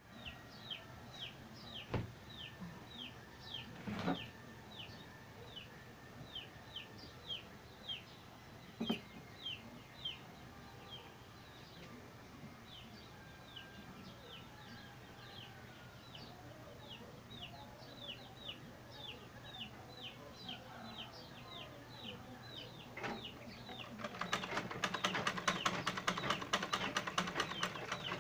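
A bird chirps over and over, a short falling note about two to three times a second. About 24 s in, a vintage sewing machine runs for about four seconds, a fast, even clatter of stitching that is the loudest sound, with a few single knocks earlier.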